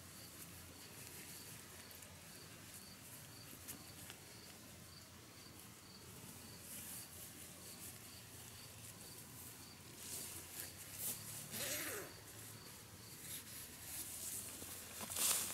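Footsteps swishing through tall wet grass, growing louder and closer from about ten seconds in. Behind them, a faint high chirp repeats evenly about three times a second.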